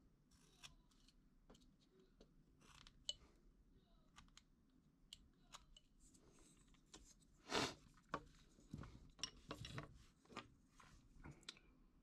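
Quiet, scattered small clicks, taps and short scrapes of close handwork on a small wooden piece, with the loudest scrape about seven and a half seconds in and a cluster of them near the end.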